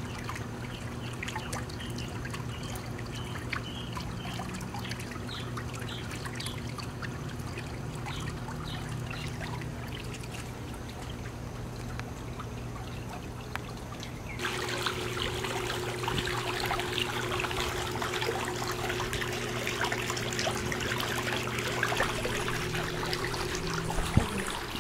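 Swimming-pool water trickling and lapping over a steady low hum. About halfway through, the water sound turns louder and brighter, with a steady tone added. A single sharp click comes near the end.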